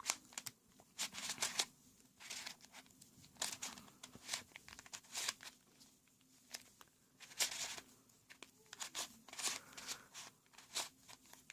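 Plastic twisty puzzle, similar to a Rubik's Cube, being turned by hand: quick, irregular clicks and scraping swishes as its layers are twisted during solving.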